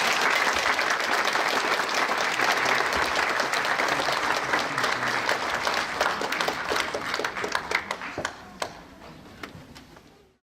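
Audience applauding, dense and steady at first, then thinning out and fading over the last few seconds.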